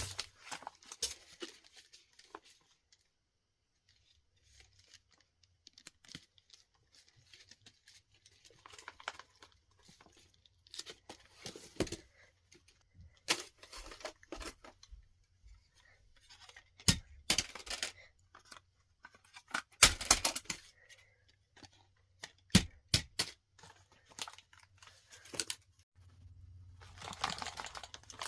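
Packaging being handled and torn open: irregular bursts of rustling, crinkling and tearing with short pauses between them, and a few sharper crackles in the second half.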